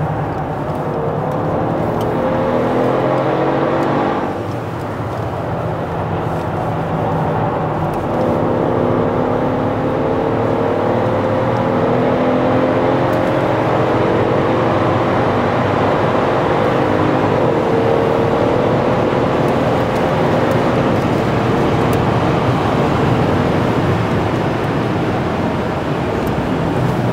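Mercedes ML63 AMG's V8 engine pulling hard, heard from inside the cabin, its pitch climbing steadily over tyre and road noise. It eases briefly about four seconds in, then climbs again in a long pull.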